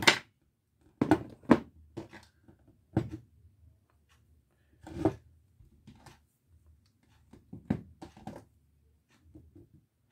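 Handling noise on a tabletop: a string of short knocks and rustles as an electrical cable and a pair of diagonal cutters are put down and a length of wire is handled. The loudest is a sharp click right at the start.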